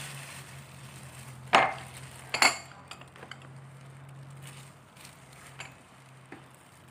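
Two sharp clinks of plates and dishes being knocked together, about one and a half and two and a half seconds in, with a few lighter clicks later, over a steady low hum.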